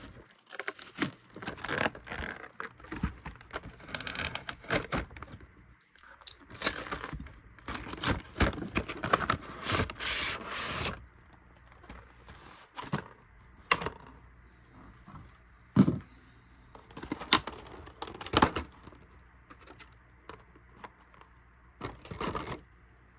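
Packaging of a Pokémon card collection box being torn open and handled: about ten seconds of rustling, tearing and scraping, then scattered light clicks and knocks as the contents are taken out.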